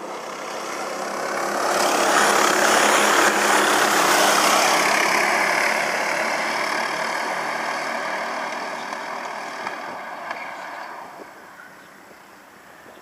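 A pack of racing go-kart engines passing at race speed. The note swells as the karts approach, is loudest for a few seconds, then fades away as they pull off down the straight.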